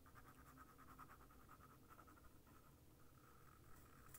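Faint scratching of a fine-tip liquid glue bottle's nozzle drawn along a cardstock tab as glue is laid down.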